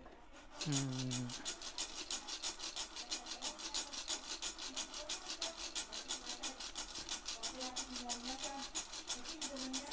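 Green coffee beans rattling and swishing inside a lidded saucepan shaken over a gas burner, a fast, even rhythm of strokes starting about half a second in; the beans are still raw, early in a light roast before they start to yellow. A faint loudspeaker voice from a passing election campaign car comes and goes behind it.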